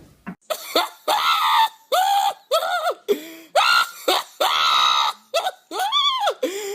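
A person's voice screaming in a string of about ten short, high-pitched shrieks, each rising and falling in pitch.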